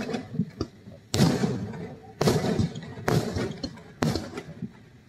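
Aerial fireworks shells bursting: about five loud bangs roughly a second apart, each trailing off in a rumbling echo.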